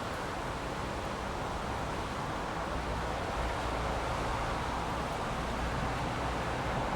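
Heavy rain falling steadily, an even hiss, with a low rumble underneath that grows slightly stronger about halfway through.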